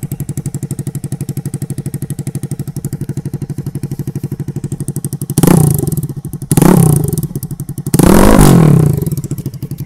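Jawa 42's single-cylinder engine idling with an even, steady beat through short open bend pipes, its stock silencers removed, then revved three times: blips about five and a half and six and a half seconds in and a longer, louder rev at about eight seconds.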